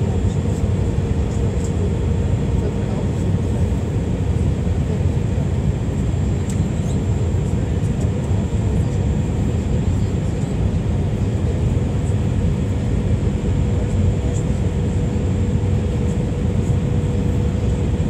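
Airliner cabin noise inside an Airbus A319 descending to land: a steady, deep rumble of engines and airflow, with a faint even whine above it.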